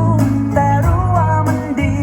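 A Thai song with a sung melody, guitar and heavy bass, played back on an Anker Soundcore Motion+ Bluetooth speaker in a stereo TWS pairing.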